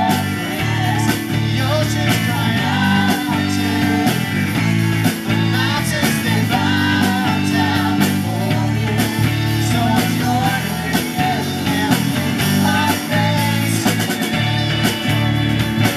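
Live amplified rock-style worship music: a full band with drum kit, electric guitars and bass playing steadily, and women singing the melody into microphones through PA speakers.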